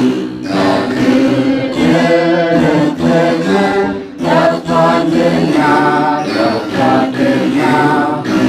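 Men's voices singing an Ethiopian Orthodox begena hymn together, with a plucked begena accompanying under the singing.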